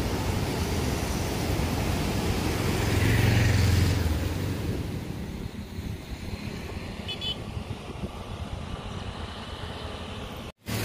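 Road and traffic noise on a motorcycle ride: a steady rush of wind and engines, with a louder vehicle passing about three seconds in and a brief high-pitched beeping around seven seconds in.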